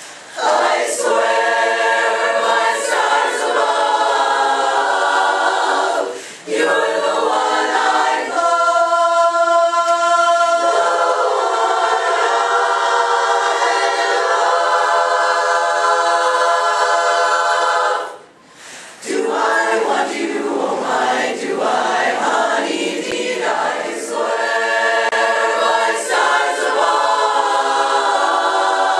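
Women's chorus singing in harmony a cappella, in sung phrases with brief breaks about 6 seconds and 18 seconds in.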